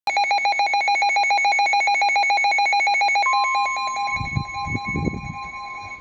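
NOAA weather radio receiver sounding its alert: a fast-pulsing electronic beep, joined about three seconds in by the steady one-pitch warning alarm tone as the beeping fades out. A few dull low thumps near the end.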